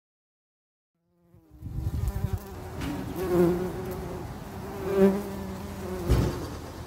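Bee buzzing sound effect: a steady, pitched buzz that begins about a second in and swells louder three times, as a bee flying past would.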